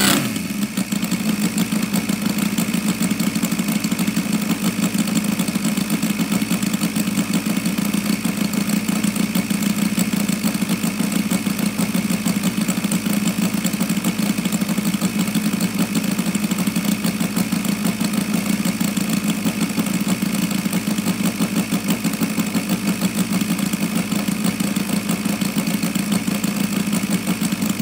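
Saito FA-170R3 three-cylinder four-stroke radial glow engine idling steadily, with a fast, even pulsing beat.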